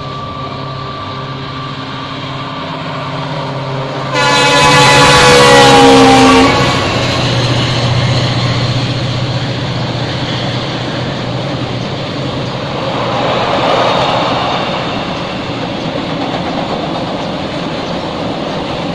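Indian Railways diesel freight locomotive approaching with its engine running, then sounding a loud horn for about two seconds a little after four seconds in, the pitch sliding down as it passes. After that, the long rake of container wagons rolls steadily over a steel girder bridge with a continuous rumble and wheel clatter.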